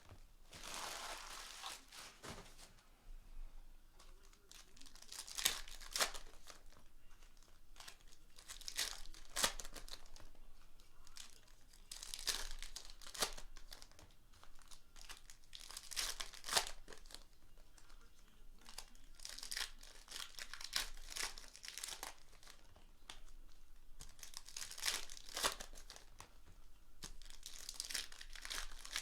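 Plastic wrapping on trading-card boxes and packs being crinkled and torn open, in irregular rustling spells with sharper crackles every few seconds.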